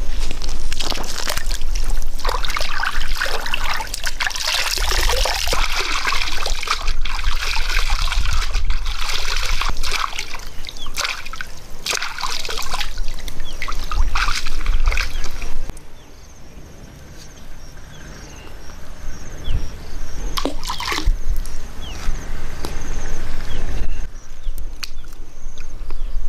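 Water splashing and sloshing as a person wades barefoot through a shallow muddy pond, in a dense run of splashes. About sixteen seconds in it drops to a much quieter background with a few small clicks.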